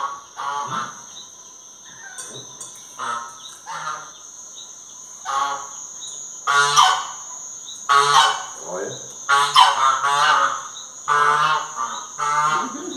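Geese honking off and on in a series of calls, about one a second, louder from about six seconds in.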